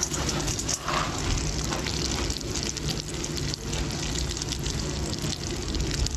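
Dried nixtamalized blue corn kernels pouring from a plastic bag into a hot stainless-steel Instant Pot insert, rattling onto the metal, then crackling and sizzling in a little rendered pork fat. The clicks are thickest in the first couple of seconds.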